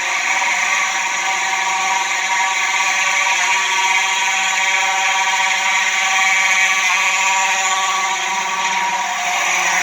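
Simplex electromechanical fire alarm horns, among them a 4903-9219 and a 4901-9805, blaring together continuously and really loud. The 4901-9805 sounds a little rough.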